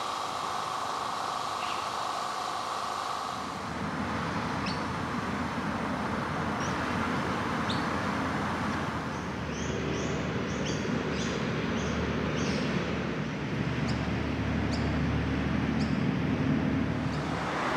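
Outdoor street ambience: a steady hum of traffic, with birds chirping in short high notes again and again after the first few seconds and a deeper vehicle rumble building in the second half.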